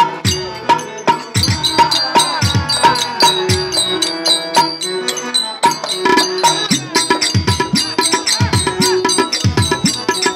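Live folk-theatre music: a hand drum plays a steady rhythm with bass strokes that slide down in pitch, over sharp metallic clicks in time with it and a sustained melodic tone.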